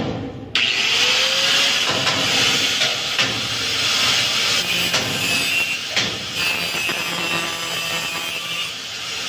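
Stick (arc) welding on steel grill bars: the electrode's arc crackling and hissing steadily once it catches about half a second in, dipping briefly near the end.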